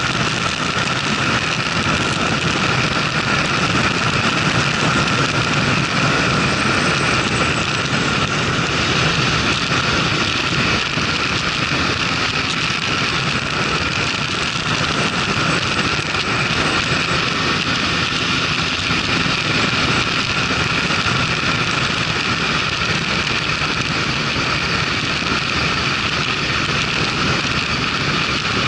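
Motorcycle running at road speed, its engine noise under a steady rush of wind on the onboard camera microphone.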